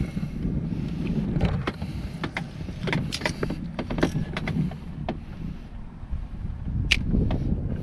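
Low rumble of wind buffeting the microphone, with scattered sharp clicks and taps from handling the spinning rod and reel.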